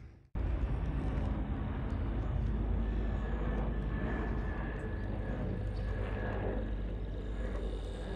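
Small-scale model tram running on the diorama's track: a steady rumble of motor and wheels with a faint high motor whine. It starts abruptly after a brief gap just after the start.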